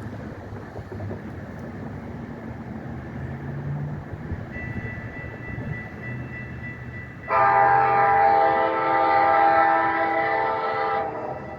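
Train rumbling, then a locomotive air horn sounds one long, steady blast of a chord of several notes, lasting about three and a half seconds and starting a little past halfway.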